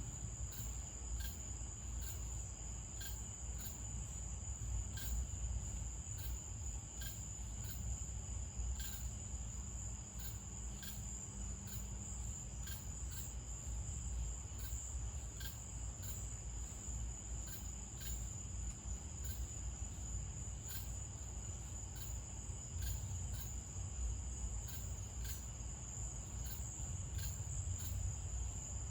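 Crickets singing at night: a steady high trill with regular short chirps about twice a second, over a low rumble.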